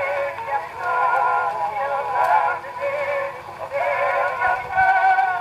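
Peter Pan portable wind-up phonograph with a rebuilt soundbox playing a 1913 Victor 78 record of Hawaiian music, singing and melody heard thin and narrow with almost no bass. The owner calls the playback a little rough.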